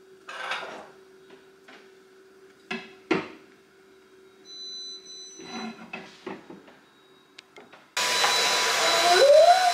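A few scattered knocks and taps of tools and a wooden shelf being fitted against a wall, then, near the end, a cordless stick vacuum cleaner starts abruptly and runs loudly with a steady whine.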